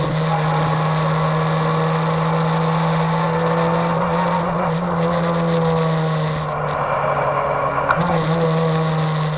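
Race car engine heard from inside the stripped cabin, running at steady revs with a strong, even note. About six and a half seconds in the note eases off, and a sharp click comes near eight seconds.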